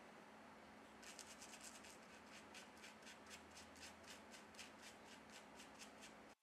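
Faint, quick scrubbing strokes of a small brush over an iPhone X logic board, about four or five strokes a second, starting about a second in: the board is being hand-scrubbed to remove water-damage corrosion.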